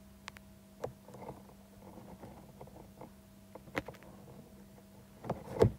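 Scattered soft clicks and rustles over a steady low hum, with a louder knock near the end.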